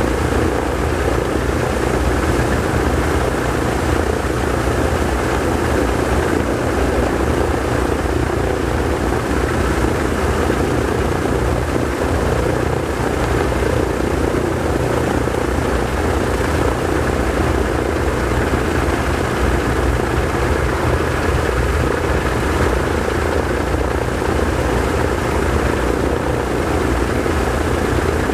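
Both Pratt & Whitney R-1830 Twin Wasp radial engines of a PBY Catalina running together on a ground engine run, the propellers turning at low power. A loud, steady drone that holds the same pitch and level throughout.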